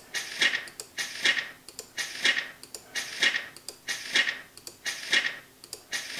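Page-turn swishes from a digital flipbook, one roughly every second as its pages are flipped in quick succession. Each is a short rustle like a paper page turning, with a click in it.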